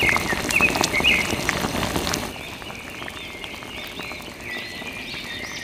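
Water from a hose splashing and pattering onto a toy tractor and wet mud, stopping abruptly a little over two seconds in. High repeated chirping runs throughout and is clearer once the splashing stops.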